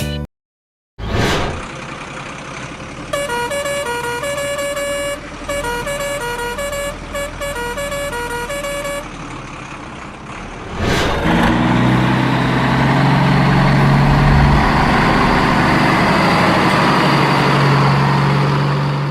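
Truck sounds: engine noise with a musical horn playing a short stepping tune, then a louder, steady low truck drone held for the last several seconds.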